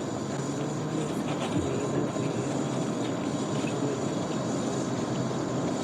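Hospital background ambience: a steady, even drone of room noise with a faint low hum, without distinct events.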